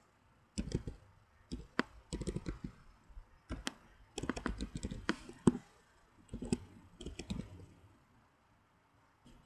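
Computer keyboard typing in short bursts of rapid key clicks with brief pauses between, mixed with single clicks.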